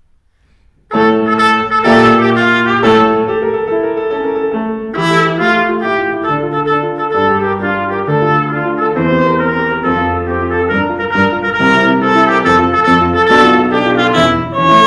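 Trumpet playing a tarantella with grand piano accompaniment, the music starting about a second in and running on in quick-moving notes.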